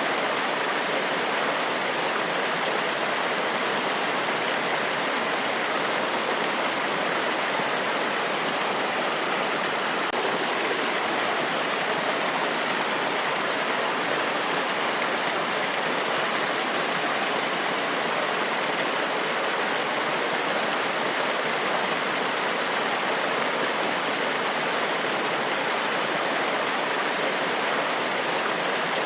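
Forest waterfall cascading, a steady, even rush of water with no change in level.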